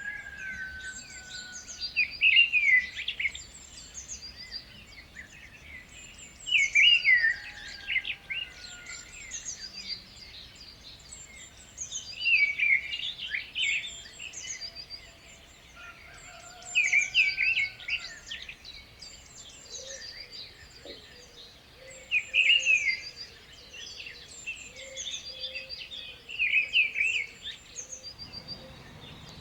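Birds singing: one bird repeats a short, loud song phrase about every five seconds, six times, while other birds keep up thinner, high-pitched chirping throughout.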